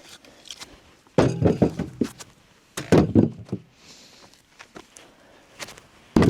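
Split firewood pieces being thrown onto a load, landing with three heavy wooden thuds that clatter briefly: about a second in, near three seconds, and at the end.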